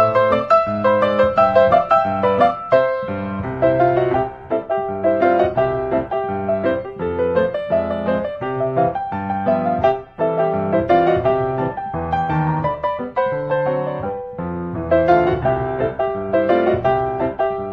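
Background piano music: a steady stream of quick, light piano notes.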